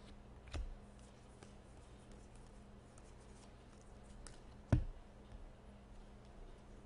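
Paper trading cards being handled: a stack of cards knocked down on a tabletop twice, lightly about half a second in and louder just before five seconds, with faint card slides and clicks between. A low steady hum underneath.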